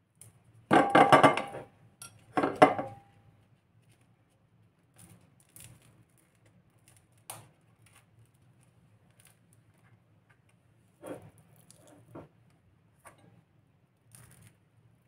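A metal teaspoon clattering against a ceramic bowl twice in the first three seconds, each time with a brief ring, followed by faint scattered taps and scrapes of the spoon.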